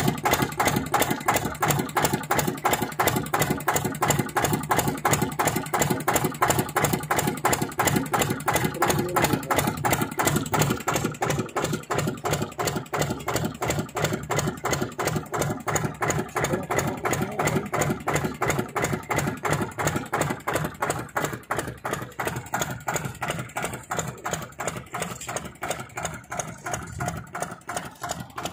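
Air-cooled diesel engine running steadily with an even, rapid chugging beat as it drives a brick kiln's draft fan by V-belts. The sound grows gradually fainter through the second half.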